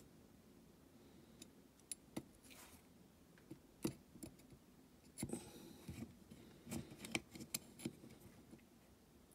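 Faint, scattered small clicks and light scraping of small die-cast toy parts being handled and fitted by hand, with a denser run of clicks from about five to eight seconds in.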